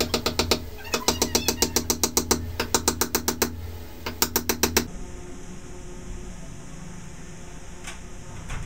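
Hammer driving a nail into a wooden batten with quick, even strikes, about eight a second, in three runs that stop about five seconds in. After that there is only a low room hum and a couple of faint knocks near the end.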